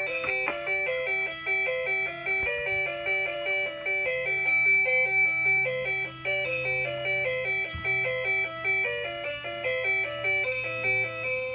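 A chiming, bell-like melody of short notes stepping up and down, like a toy or music-box tune, over a steady low hum.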